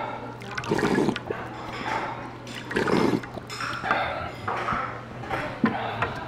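Slurping rice-noodle broth from a large spoon: three loud slurps about two seconds apart, then smaller sips, with a sharp click near the end.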